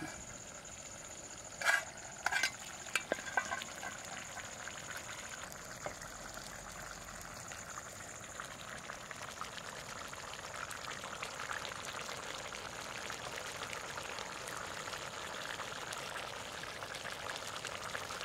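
Mutton curry bubbling at a boil in an aluminium pot over a wood fire, a dense crackling that grows fuller in the second half. A few sharp metal clinks of a steel spoon near the start.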